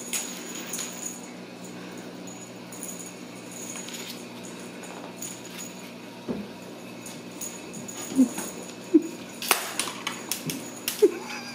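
Ragdoll kittens playing on a wooden floor: scattered taps and clicks of paws, claws and a wand toy, growing busier in the last few seconds, over a steady low hum.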